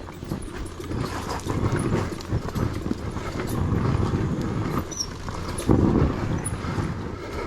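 Yamaha YZ250 dirt bike's engine at low revs while descending a steep downhill, popping irregularly, with the bike knocking and rattling over the rough trail. A louder burst comes about six seconds in.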